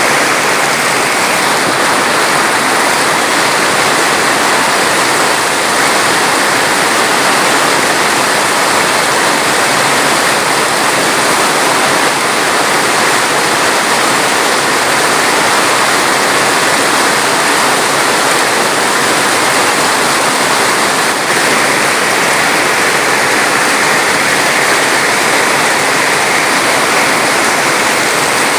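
Water rushing steadily, an even, unbroken noise like a stream or waterfall in flow.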